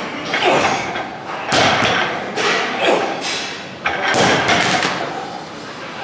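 Heavy barbell loaded with Eleiko plates touching down on a lifting platform between deadlift reps, a few heavy thuds with some clanking of the plates.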